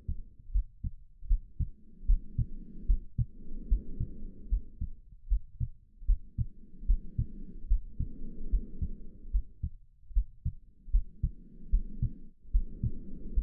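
A human heartbeat beating steadily, about two thumps a second, under slow breathing. Three breaths, each an in-breath followed by an out-breath, come roughly every five seconds.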